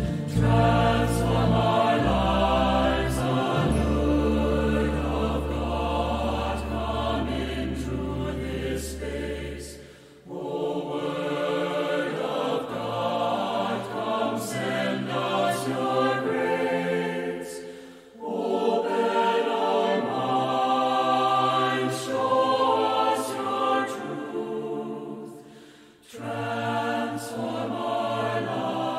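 Entrance hymn: voices singing with instrumental accompaniment, in phrases of about eight seconds, each ending in a brief pause. Steady low accompaniment notes sound under the first phrase.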